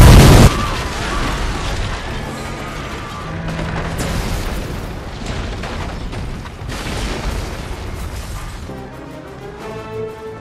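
A very loud, distorted blast in the first half second, then the rumbling crashes and debris of a starship crash-landing, under orchestral film score that comes through more clearly near the end.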